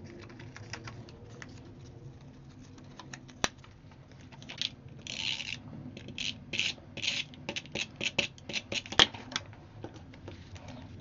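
Paper and card being handled and rubbed, a run of short scratchy rubbing strokes in the second half with a sharp click near the end.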